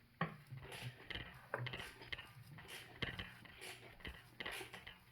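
Engine crankshaft being turned over by hand with a wrench, giving faint, irregular mechanical clicks and clunks; the engine is not running.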